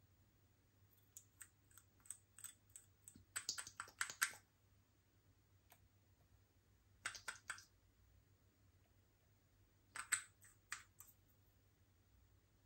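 Quick, sharp clicks and crackles in three short bursts, the first and longest starting about a second in, then one about seven seconds in and one about ten seconds in.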